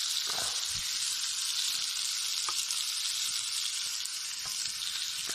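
Oiled ribeye steak sizzling on a hot griddle: a steady frying hiss with a few faint pops.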